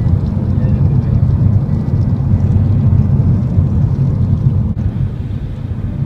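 Steady low rumble of a moving car heard from inside the cabin: road and engine noise. It briefly drops out about three-quarters of the way through.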